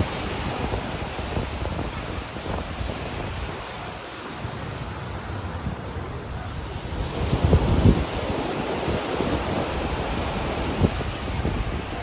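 Small surf breaking and washing up the sand, with wind buffeting the microphone in gusts. The gusts are strongest about seven to eight seconds in.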